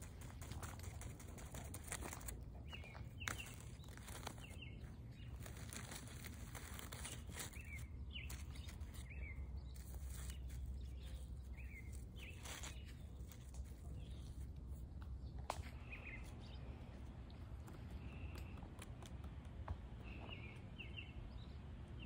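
Soft, scattered taps and light crackles as a fingertip pokes and taps a mushroom cap and the dry leaf litter around it. Small birds chirp briefly again and again in the background over a low, steady rumble.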